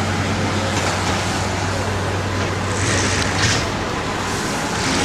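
Parked fire engines running at idle, giving a steady rumble with a low hum that drops away about three and a half seconds in. A few short hisses come near that point.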